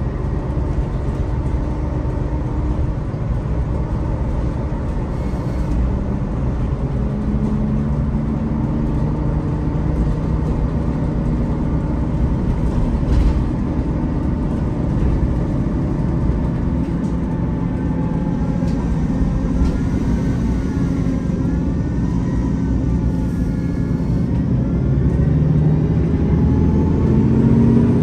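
MAN Lion's City articulated diesel city bus with a ZF automatic gearbox, heard from inside the passenger cabin while under way: a steady low engine and driveline drone with gearbox and driveline whines on top. In the second half the whines glide up and down, and near the end the sound grows louder as the bus pulls harder.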